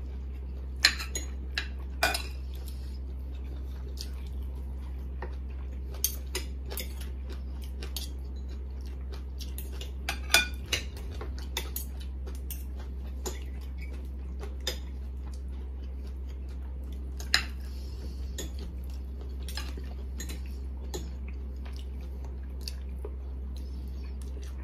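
Metal forks and spoons clinking and scraping against ceramic plates and bowls as two people eat: irregular sharp clicks every second or two over a steady low hum.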